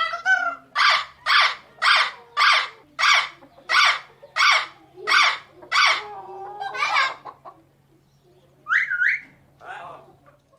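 Parrot giving a run of about nine harsh, evenly spaced calls, roughly one every two-thirds of a second. These are followed by a few varied squawks and a short two-note whistle-like call near the end.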